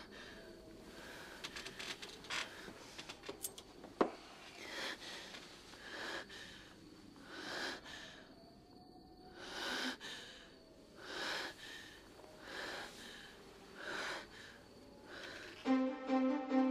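A woman's ragged, sobbing breaths, one about every second and a half, with a sharp click about four seconds in. Near the end, music with low held notes comes in.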